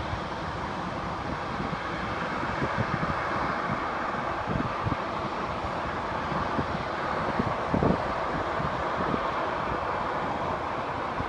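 Steady rushing travel noise of a moving vehicle, with scattered low thumps of wind buffeting the microphone.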